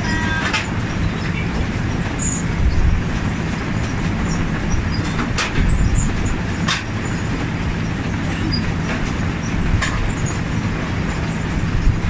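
Potato harvester running steadily, its conveyor carrying potatoes past the pickers: a constant low mechanical rumble and hum, with about four sharp knocks along the way.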